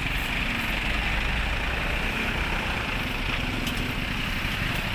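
Heavy diesel tow-truck engine idling steadily.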